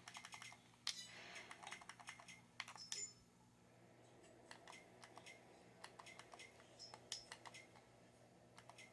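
Faint scattered clicks and taps, irregular and close together in places, over a low steady hum.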